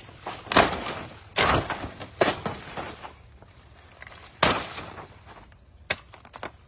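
A blade on a long bamboo pole chopping at a banana plant to cut down its flower: about five sharp, uneven chops, each followed by a brief rustle of leaves and stalk.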